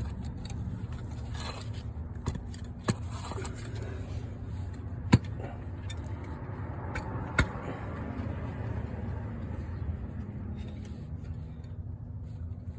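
A few sharp clicks and knocks from tools and parts being handled during a starter replacement, the loudest about five seconds in and another a couple of seconds later, over a steady low hum.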